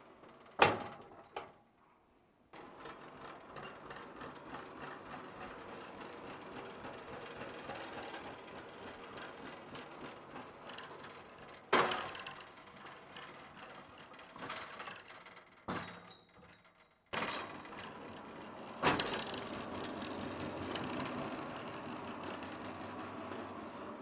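Sharp metallic knocks and clanks from the metal rails and frame of a portable swing-blade sawmill being handled and assembled, scattered through, over a steady background haze. The loudest knock comes about half a second in. The background cuts out abruptly twice.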